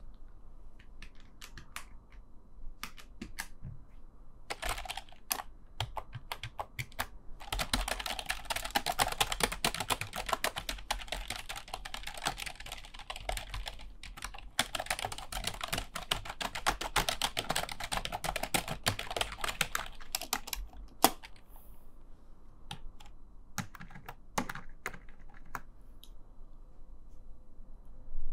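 Computer keyboard being typed on: scattered single keystrokes for the first several seconds, then a fast, continuous clatter of keys for about twelve seconds with a short pause in the middle, then back to sparse, separate keystrokes.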